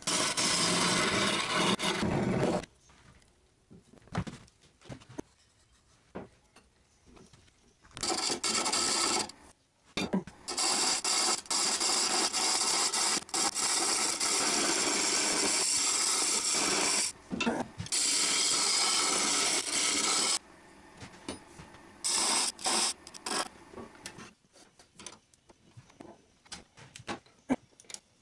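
Turning tool cutting into a spinning catalpa wood blank on a lathe, a rough scraping hiss. It comes in stretches of a few seconds, the longest about ten seconds, with quiet gaps and a few short cuts between.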